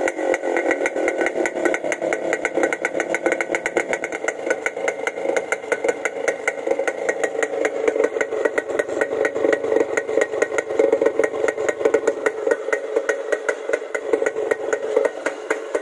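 Yamaha RX 100's two-stroke single-cylinder engine running steadily on its stand, exhaling through a silencer whose muffler insert has been cut down by half. The exhaust is a rapid, even train of pops and is quite loud.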